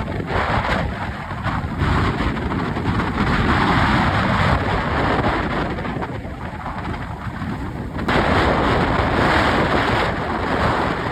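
Strong wind, about 30 knots, buffeting the microphone: a loud, rumbling rush that swells and eases and turns suddenly louder about eight seconds in.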